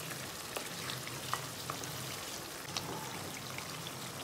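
Chicken karahi sizzling as it fries in oil and yogurt in a non-stick karahi while a wooden spatula stirs it: a steady frying hiss with scattered small pops. This is the bhuna stage, frying the yogurt into the chicken.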